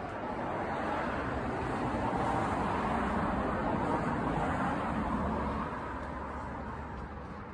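A road vehicle driving past, its tyre and engine noise swelling up over a couple of seconds, then fading away.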